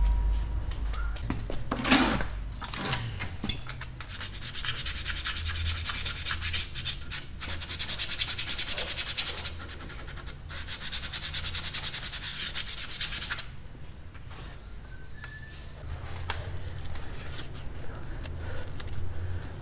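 80-grit sandpaper rubbed by hand over the linings of a Honda Civic's rear drum brake shoes, in fast back-and-forth strokes that pause about two thirds of the way through, then start again. The sanding takes off the glazed film that can make the brakes squeal.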